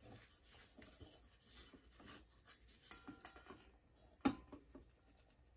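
Metal parts clinking, tapping and scraping as a round lantern part is worked in a small bench vise, with one sharp metallic knock about four seconds in.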